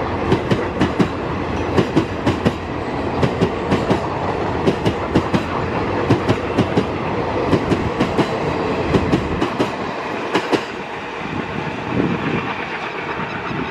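ICF passenger coaches rolling past at speed, their wheels clicking over the rail joints in a quick clickety-clack over a steady rumble. The clicks stop about ten seconds in as the last coach passes, and the rumble fades away.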